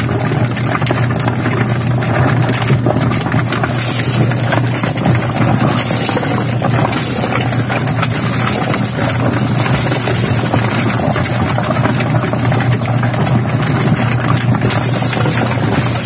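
DIY chicken plucker built from a washing machine running steadily with a low motor hum, spinning a chicken against the rubber plucker fingers in its drum. From about four seconds in, water poured into the drum adds a splashing hiss.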